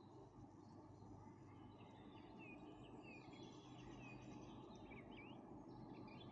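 Faint birdsong: a series of short chirps and quick whistled notes over a low, steady background hum.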